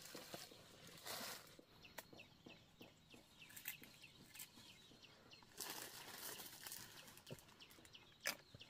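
Faint bird chirping: a run of short, quick, falling chirps, about four a second, with a few brief rustles and soft knocks.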